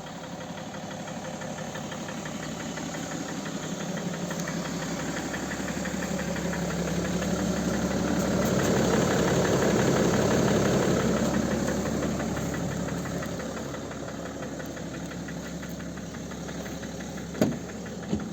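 BMW M57 (306D3) three-litre straight-six diesel idling just after a cold start, with a steady rhythmic knock. It grows louder towards the middle and eases off again, and two sharp clicks come near the end.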